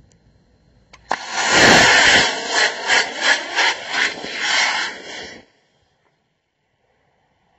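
Two Estes C6-7 model rocket motors igniting with a sharp click about a second in, then the loud rushing hiss of their exhaust, pulsing about three times a second in the middle, stopping abruptly.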